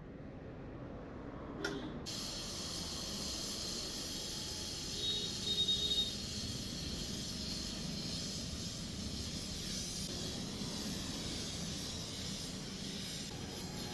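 Gas welding torch flame hissing steadily, the hiss starting abruptly about two seconds in after a click. It is the brazing torch heating brass.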